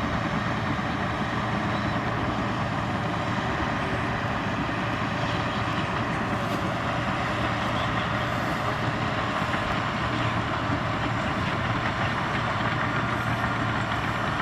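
Komatsu crawler bulldozer's diesel engine running steadily under load, with a constant engine note and the faint clatter of the steel tracks.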